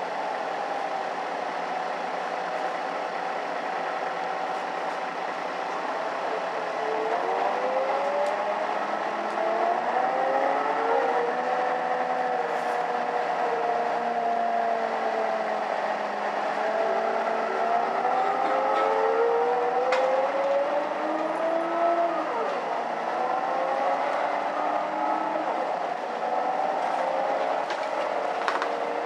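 Mercedes-Benz O530 Citaro city bus heard from inside the passenger cabin: a steady mechanical drone with whining tones that rise and fall in pitch several times, plus a few faint clicks.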